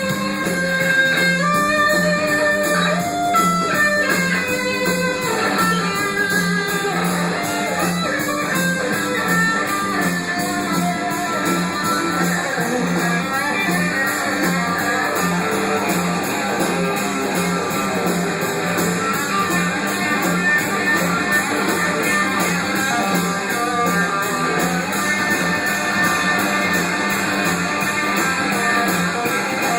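Instrumental band music with no singing: a guitar plays a melody over a steady, evenly repeating bass beat.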